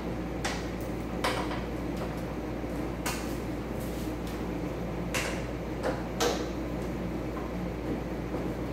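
Scattered light clicks and knocks, about six over several seconds, from hand work with a small tool on the fasteners at the front of a roadster's body, over a steady low hum.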